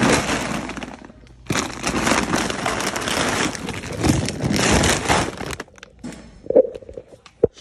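Plastic 40 lb Purina ONE dog food bag crinkling and rustling loudly as it is lifted and shifted into a shopping cart, then two short thumps near the end as it is set down.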